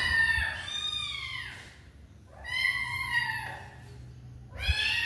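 Kitten meowing repeatedly: long, drawn-out meows that rise and fall in pitch, one about every two seconds.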